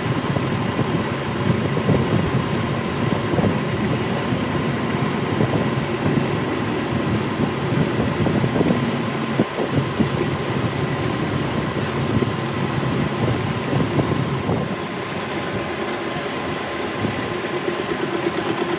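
A workshop machine running steadily, with a constant hum and a few light knocks, easing slightly about fifteen seconds in.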